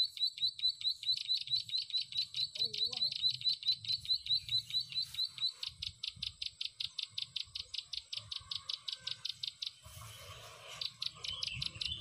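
Young plain prinia (prenjak sawah) giving its rapid chattering 'ngeriwik' call: a fast, even series of high chirps, about five a second. The notes turn harsher about halfway through, stop for a moment near the end, then start again.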